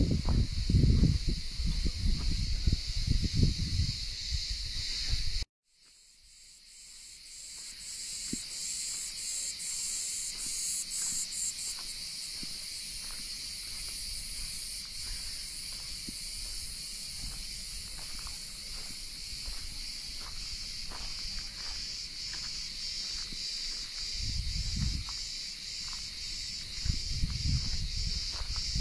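Steady high-pitched chorus of insects, pulsing rapidly. A loud low rumble fills the first few seconds, then the sound cuts out abruptly and the insect chorus fades back in, with more low rumble near the end.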